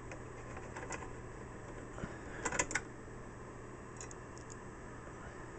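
Phillips screwdriver backing screws out of a sheet-metal UPS battery cover panel: a few faint scattered metallic clicks and scrapes, with a small cluster of them about halfway through.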